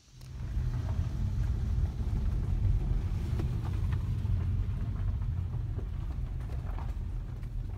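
Car driving along a gravel road, heard from inside the cabin: a steady low rumble of tyres and engine, with a few faint clicks.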